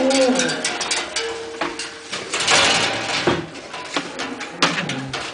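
Thin sticks clicking, scraping and rattling against a stack of bicycle wheel rims used as a percussion instrument, a rapid irregular patter with a few brief ringing tones from the rims.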